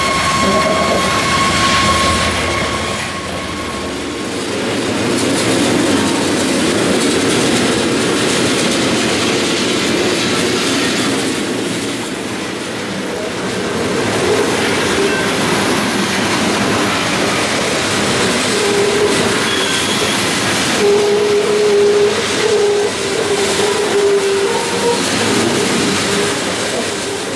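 Freight cars of a CSX coal train rolling steadily past, with continuous rumble and rhythmic wheel clatter over the rail. A thin steady high tone sounds over it for the first few seconds.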